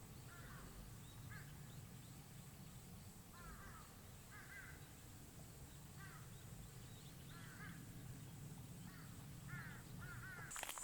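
Faint, scattered short bird calls, about a dozen brief arched notes, over a low steady hum, with no footsteps.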